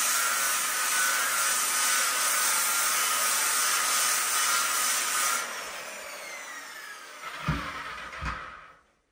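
Power sander with a diamond sanding pad wet-sanding out a chip in a porcelain tub, running steadily with a constant whine. About five seconds in it is switched off and its whine falls as it spins down, with two dull knocks near the end.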